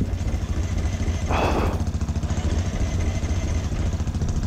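Single-cylinder supermoto motorcycle engine idling steadily, with a short burst of noise about a second and a half in.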